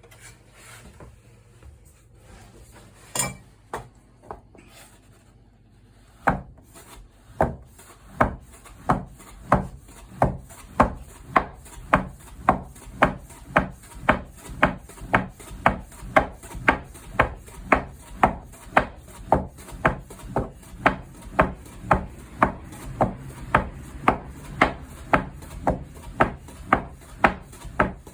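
Soba knife chopping through folded buckwheat dough on a wooden board, cutting noodles: a few scattered knocks, then from about six seconds in a steady rhythm of about two chops a second.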